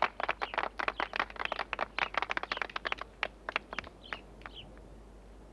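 A small group clapping hands: many quick, irregular claps that thin out and stop about three and a half seconds in. Two short high chirps follow soon after.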